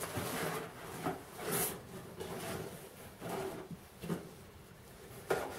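Handling noises: a few short rustles and scrapes, with light knocks, as goods are picked up and looked through.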